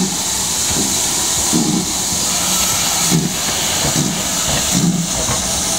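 Steam locomotive, a GWR 5600-class 0-6-2 tank engine, moving slowly past with a steady loud hiss of escaping steam and a soft low beat repeating roughly once a second.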